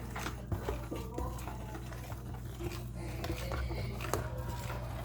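Faint voices and a few light clicks and knocks over a low steady hum.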